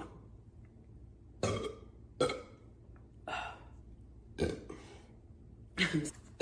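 A woman burping repeatedly: about five short burps, spaced roughly a second apart.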